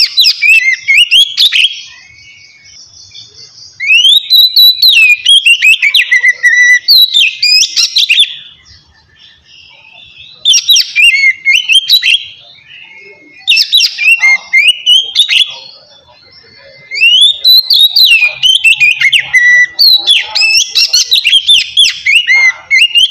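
Oriental magpie-robin (kacer) singing loud, clear whistled phrases of rapidly rising and falling notes. The song comes in about six bursts of one to four seconds each, separated by short pauses.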